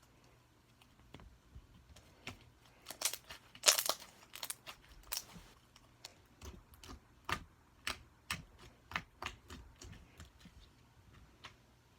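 Slime being squished and poked by hand, giving irregular sticky clicks and pops, the loudest about four seconds in.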